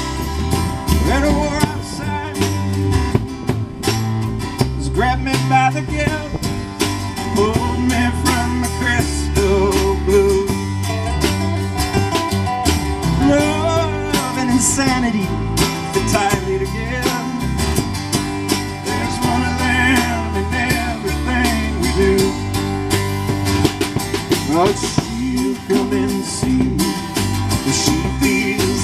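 A live acoustic roots band playing: resonator guitar, acoustic guitar, upright bass and drum kit, amplified through PA speakers.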